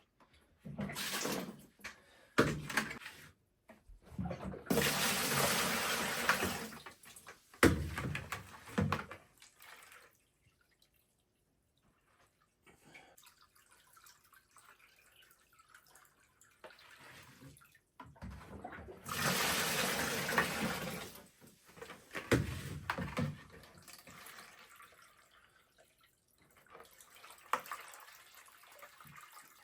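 Water poured into a washing machine tub in bursts, splashing and sloshing inside, with the two longest pours about five seconds in and near the middle. Brief knocks from the bucket come between the pours.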